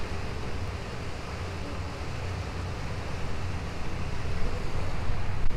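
Wind buffeting the microphone on the open deck of a harbour cruise boat under way, over the low rumble of the boat and water, growing a little louder near the end.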